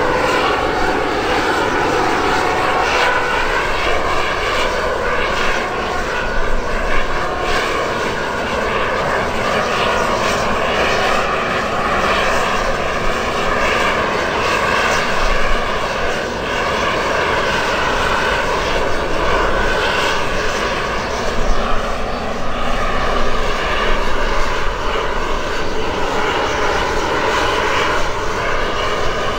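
Fixed-wing aircraft engines running loudly and steadily, with a whine that slowly wavers up and down in pitch.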